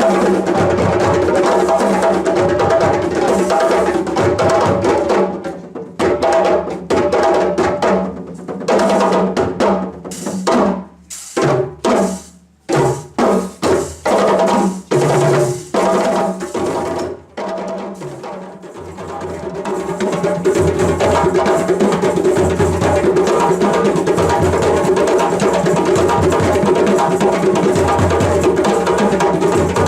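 Percussion ensemble drumming: a dense, steady groove breaks off about five seconds in into a passage of separate, punctuated hits with short gaps between them, then builds back into the full groove about twenty seconds in.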